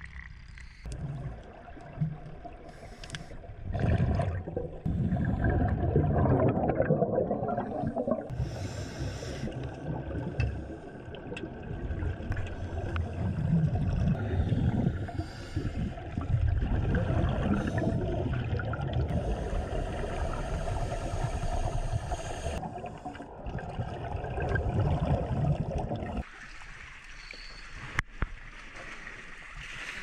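Seawater sloshing and splashing with a low rumbling noise as waterlogged rubbish is dragged up out of a harbour. The sound drops quieter near the end.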